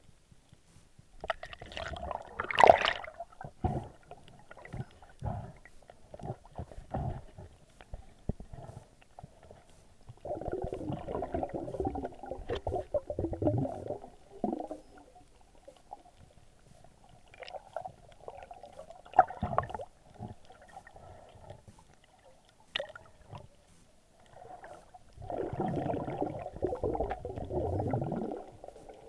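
Muffled water noise recorded underwater: gurgling and sloshing that comes and goes in a few bursts of several seconds, with scattered soft knocks in between.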